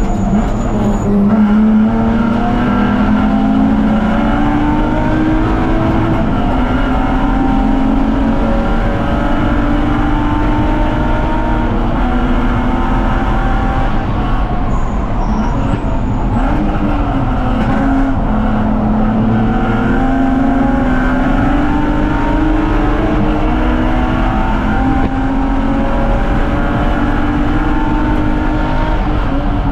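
BMW 330Ci's inline-six engine at racing speed, its pitch climbing under full throttle and dropping back at each gear change, with a lull where it comes off the throttle for braking midway.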